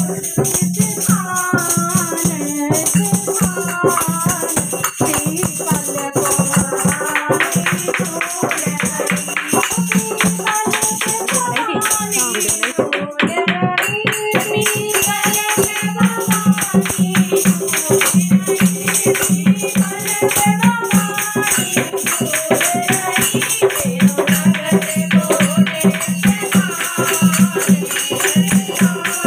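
Women singing a Hindu devotional bhajan to the Mother goddess, with a dholak hand drum keeping a steady beat and jingling rattle-like percussion and clapping throughout.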